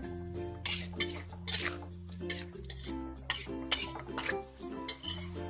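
Metal spatula scraping and clinking against a wok in irregular strokes while stir-frying chicken skin with chillies and onion, over steady background music.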